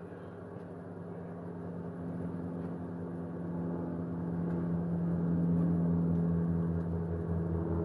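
Steady low machine hum that slowly grows louder.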